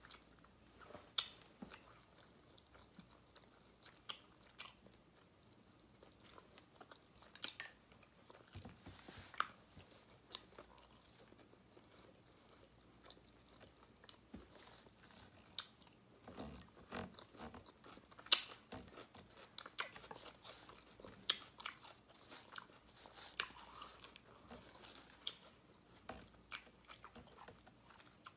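Quiet close-up eating sounds: a person chewing and working food in the mouth, with scattered sharp clicks of a metal fork against a ceramic bowl and plate.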